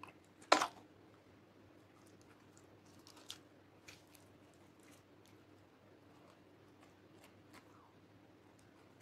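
Fingers pressing into and pulling at slime topped with beads and sprinkles, making scattered small sticky pops and crackles. The loudest pop comes about half a second in.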